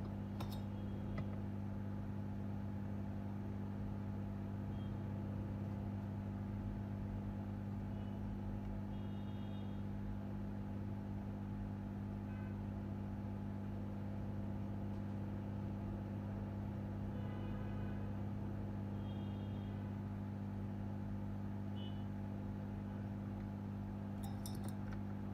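Steady low electrical hum with a stack of even overtones, the mains-hum kind given off by workbench equipment, with a few faint short high chirps along the way and some clicks near the end.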